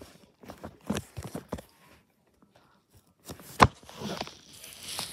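Handling noise: clicks and crackling rustles of a phone moving against a dog's curly fur, a quiet gap, then one sharp knock about three and a half seconds in, followed by a soft rustling hiss.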